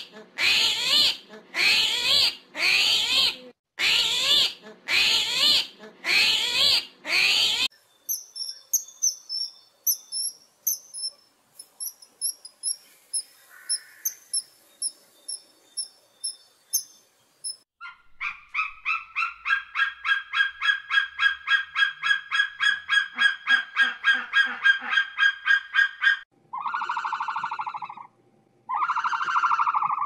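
A string of different bird and animal calls. First come loud harsh calls about one a second, then faint high-pitched chirps. Then a fast rattling call of about five pulses a second runs for eight seconds, and long drawn-out calls follow near the end.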